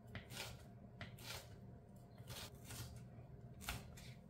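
Chef's knife dicing a yellow bell pepper on a plastic cutting board: faint, irregular chops, about six strokes, with one sharper knock near the end.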